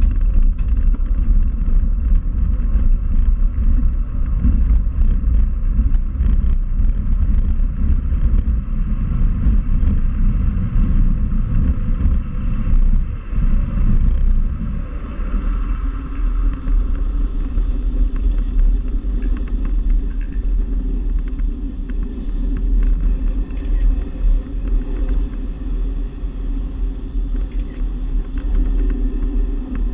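Cockpit noise of a G103 Twin Astir glider on an aerotow take-off: a loud, continuous low rumble with many short knocks as the wheel runs over the grass strip. About halfway through the knocks die away and the rumble smooths out as the glider lifts off.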